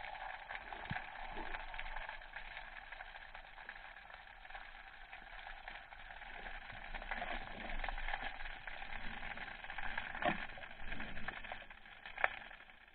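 Underwater ambience picked up through a diving camera's housing: a steady hiss with a faint steady hum. Two sharp clicks come a few seconds before the end and again near the end.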